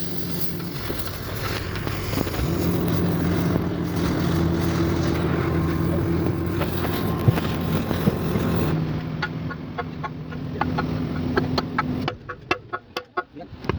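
A motor running with a steady pitched hum, stopping about twelve seconds in, followed by a quick series of clicks and taps.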